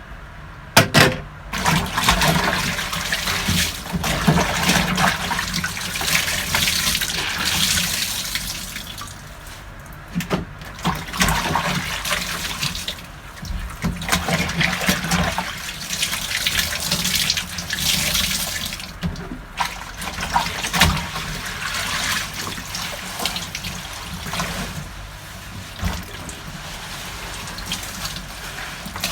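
Water sloshing and splashing in the wash tub of a Hisense twin-tub washing machine as clothes are rinsed, surging and easing every few seconds. A couple of sharp knocks about a second in.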